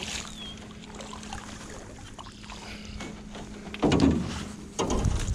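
Largemouth bass splashing at the surface beside a canoe as it is landed, then a louder bump and rustle about four seconds in as the fish is handled in the boat.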